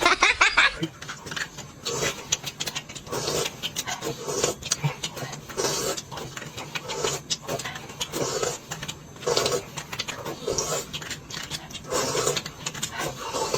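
A person eating noisily: a long string of short chewing and smacking sounds, one or two a second.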